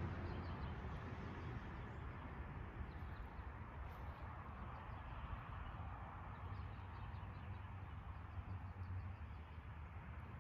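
Quiet outdoor ambience: a steady low rumble and hiss, with faint, short high bird chirps in loose runs.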